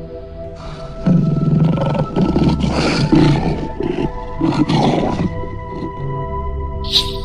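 A big cat roaring in several rough bursts over background music, which fades to music alone after about five seconds.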